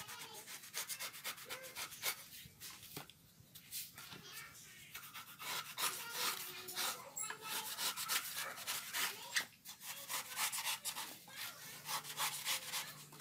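A broad knife blade scraping and shaving the fibrous husk off a coconut, a quick, uneven series of short rasping strokes.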